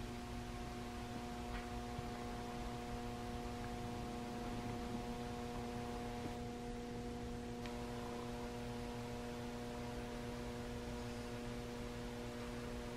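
Steady electrical hum made of several fixed tones, with a couple of faint ticks.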